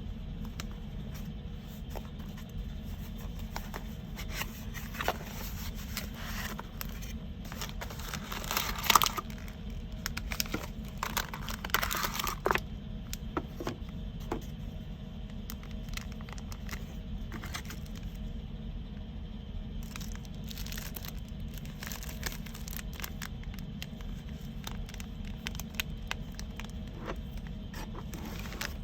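Unboxing handling sounds: packaging rustling and crinkling, with scattered small clicks and knocks, loudest in two bursts about a third of the way in. A steady low hum runs underneath.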